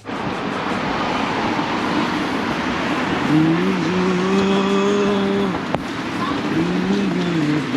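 Road traffic noise, with a vehicle engine climbing to a steady pitch and holding it for about two seconds before dropping away, then rising and falling once more, briefly, near the end.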